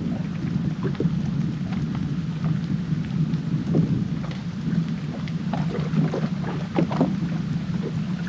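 Wind rumbling on the microphone, heavily processed to cut the wind noise, with small waves slapping and splashing against the boat's hull in short, irregular knocks.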